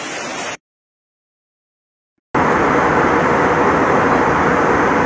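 Floodwater rushing for about half a second, then cut off into two seconds of silence, followed by the steady, loud noise of an airplane cabin in flight.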